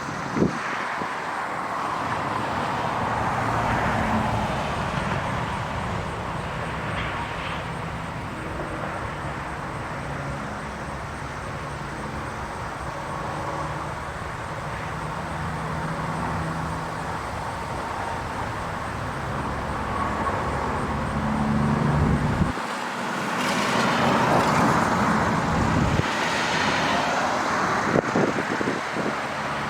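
Cars passing on a road, the traffic noise swelling with a louder pass a few seconds in and another near the end. Beneath it a faint low drone from the Federal Signal STH-10 siren slowly winding down after its alert.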